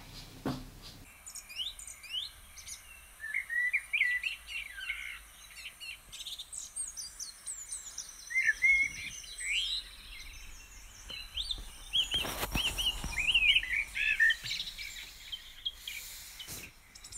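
Small songbirds singing: many quick, high chirps and trills that rise and fall, coming in short runs, with a brief rushing noise about twelve seconds in.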